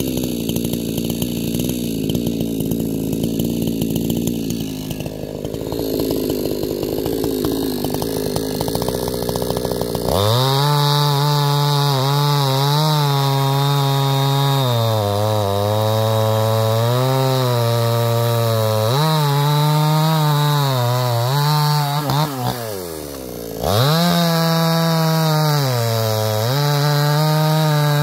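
Two-stroke chainsaw running at a low, rough speed, then opening up to full throttle about ten seconds in and cutting through a thick log. Its pitch dips each time the chain bogs down in the wood. Near the end the revs fall away briefly and climb back as the cut resumes.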